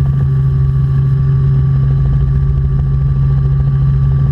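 Robinson R44 Clipper II helicopter in flight, its Lycoming IO-540 engine and rotors making a steady drone with a constant low hum that does not change.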